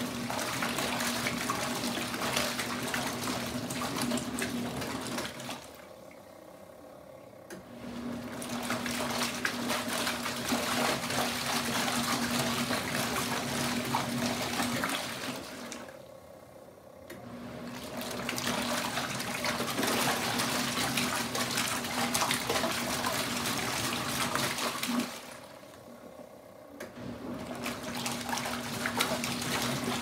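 Kuppet twin-tub portable washing machine's wash tub agitating towels in soapy water: churning, sloshing water over a steady motor hum. It stops for about two seconds three times, about every ten seconds, as the wash cycle pauses between turns.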